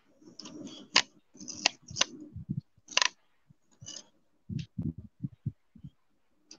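Irregular clicking and tapping of a computer mouse and keyboard as a drawing is edited on screen: a few sharp clicks in the first half, then a quick run of softer, duller taps later on.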